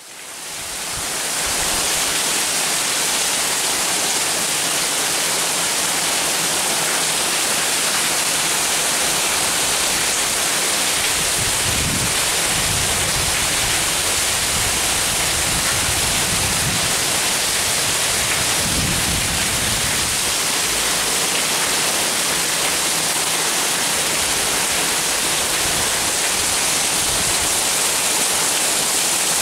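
Heavy rain pouring down in a steady hiss, fading in over the first couple of seconds, with a few brief low rumbles around the middle.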